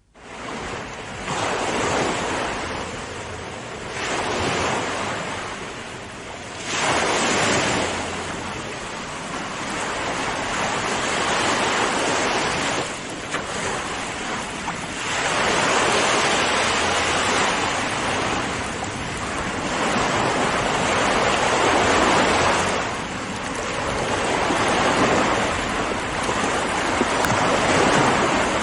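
Ocean waves breaking and washing on a shore, a loud hiss that swells and falls back in surges every few seconds. It fades in at the very start.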